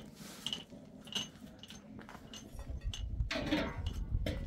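A few light clinks of small hard objects being handled, then a rustling, scraping noise with a low rumble about three seconds in.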